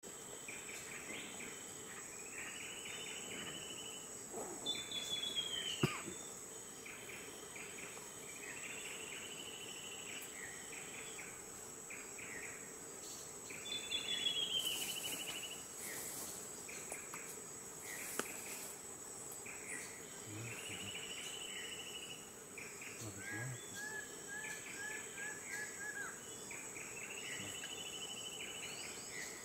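Steady high-pitched drone of forest insects, with a bird repeating short arching calls every couple of seconds and giving a quick run of notes near the end. A sharp click sounds about six seconds in.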